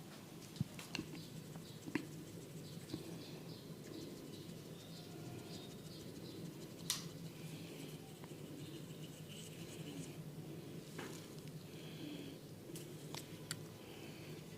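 Head massage: hair and scalp being rubbed and scratched in soft, scratchy rustles, with a few sharp clicks, over a steady low hum.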